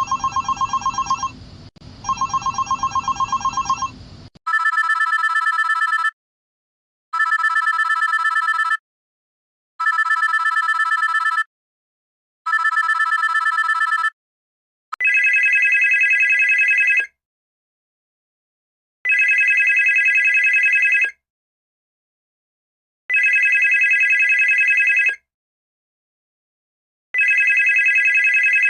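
Telephone ring sound effects, three different ones in succession, each ring a rapid trill. First come two rings with a low noise beneath them. Then four shorter, higher rings about two and a half seconds apart, and finally four longer rings higher still, about four seconds apart.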